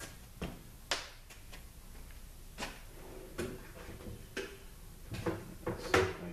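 Scattered light clicks and knocks of hand tools being handled and set down on a metal workbench, about seven in all at uneven intervals, the loudest near the end.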